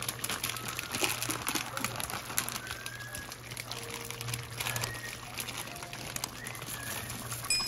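Pot of chicken and mixed vegetables boiling hard: irregular crackling and popping of bubbles over a steady low hum, with a few short faint high tones.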